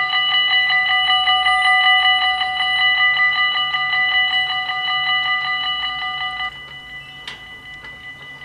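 Dutch level-crossing warning bells ringing fast, with many strikes a second, while the half barriers come down to warn of an approaching train. The bells cut off abruptly about six and a half seconds in, once the barriers are down, leaving a fainter ringing and a single sharp click.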